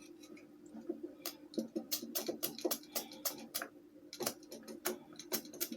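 Irregular light clicks and taps, several a second, from the fan's mechanism and parts being handled during lubrication, over a steady low hum.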